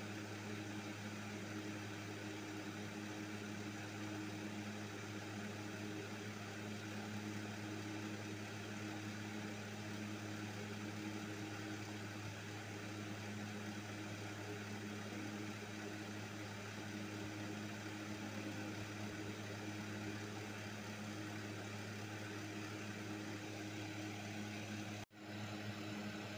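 Steady low mechanical hum over a faint hiss, unchanging, with a momentary dropout near the end.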